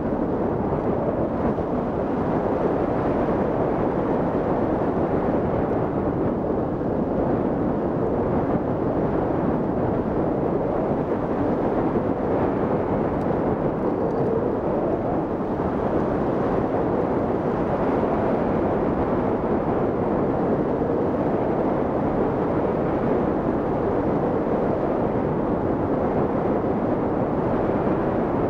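Steady rush of airflow buffeting a camera microphone mounted on a hang glider in flight, an even noisy roar without distinct events.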